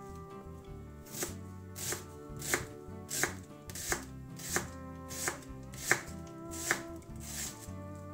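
Chef's knife slicing an onion into half-rings on a wooden cutting board: about ten even cuts, roughly one every two-thirds of a second, starting about a second in.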